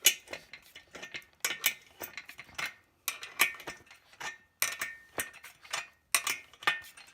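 Wrenches clinking on a steel nut and bolt as the nut is turned tight: a run of irregular, sharp metallic clicks in small clusters, some with a faint ring.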